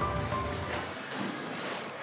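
Background music fading out in the first half-second, leaving only faint rustling.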